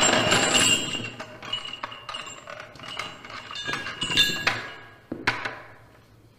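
Metal mechanical-joint hardware clinking and knocking as it is handled, with ringing metallic clinks over the first four seconds or so and a single thunk about five seconds in.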